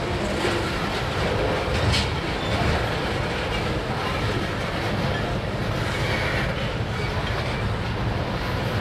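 Freight train's covered hopper cars rolling past: a steady rumble and clatter of steel wheels on the rails, with a sharp clank about two seconds in and brief faint wheel squeals.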